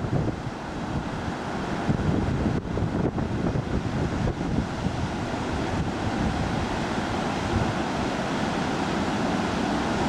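Rough Gulf of Mexico storm surf crashing and washing in a continuous, surging roar, with wind buffeting the microphone.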